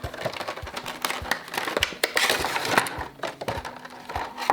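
Cardboard box and plastic packaging being handled: a run of small clicks, knocks and crinkling as a vinyl Funko Pop figure is taken out of its box.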